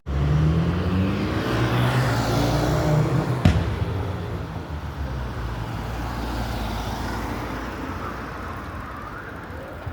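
A road vehicle's engine passes close by, its note rising at first, then fading away into traffic noise. There is one sharp knock about three and a half seconds in.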